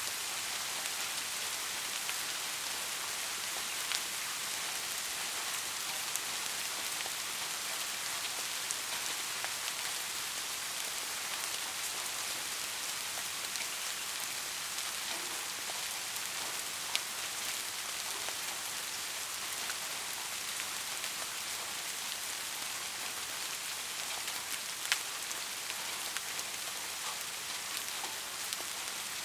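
Steady rain falling on a roof, an even hiss with scattered sharp drops striking close by.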